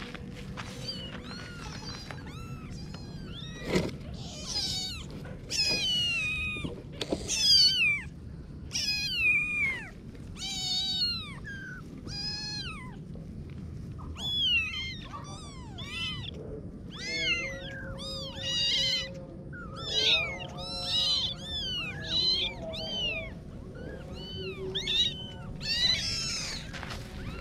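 Kittens meowing over and over, short high-pitched calls coming about once or twice a second, with some lower calls overlapping about two-thirds of the way through.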